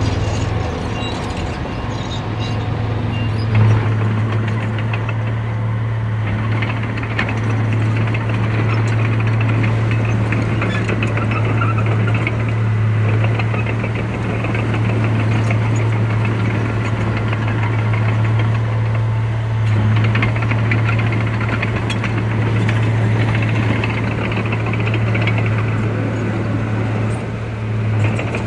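Heavy diesel engine of earthmoving machinery running steadily with a deep, even hum, with a few brief knocks about 4 s in, about 20 s in and near the end.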